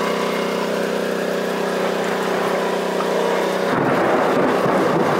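Heavy rain and gusting wind of a thunderstorm heard on a sailboat's deck. A steady low hum runs under the rain until about three and a half seconds in, when rougher, fluttering wind noise takes over.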